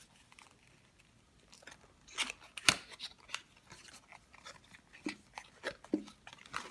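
Hard plastic being handled, as a boxed 5x5 Rubik's cube and its packaging are opened: a quiet first two seconds, then a run of crackles and sharp clicks.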